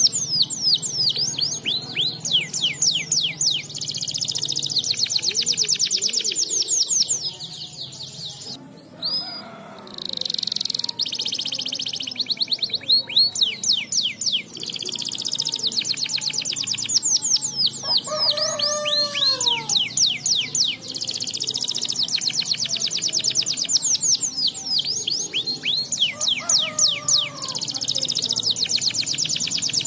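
Domestic canary singing: long runs of very fast, rolling trills and chattering notes, broken by a couple of short pauses. A lower, falling call sounds twice in the background.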